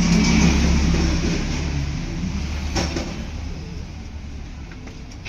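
A motor vehicle's engine passing close by, loudest at first and fading away over the next few seconds, with a single sharp click about three seconds in.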